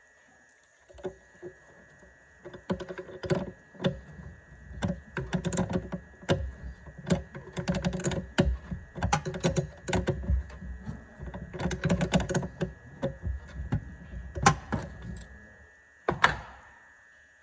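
Irregular run of clicks, knocks and rattles from hand tools and metal parts being handled during a car battery change. The last two knocks, near the end, are sharp, and the final one rings briefly.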